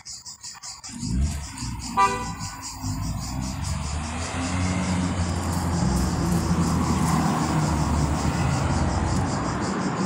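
A motor vehicle's engine starts up about a second in and runs steadily, with a brief horn toot at about two seconds. Crickets chirp in a fast, even pulsing rhythm throughout.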